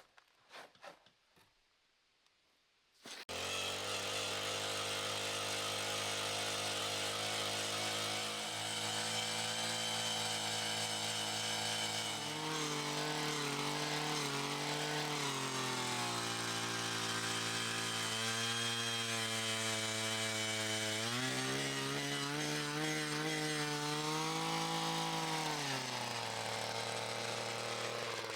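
A few light clicks, then about three seconds in a small engine starts running steadily. Its pitch rises and falls back twice, as if throttled up and down.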